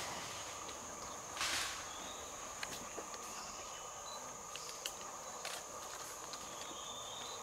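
Equatorial rainforest ambience: insects keep up a steady, high, continuous drone. Scattered faint clicks and a short rustle about a second and a half in sound over it.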